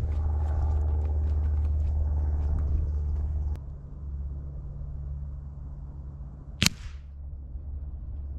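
Footsteps crunching away over rough ground over a low rumble that eases about three and a half seconds in. About two-thirds of the way through, one sharp crack as a .177 pellet from a Webley VMX Quantum break-barrel spring air rifle strikes the paper target beside the microphone.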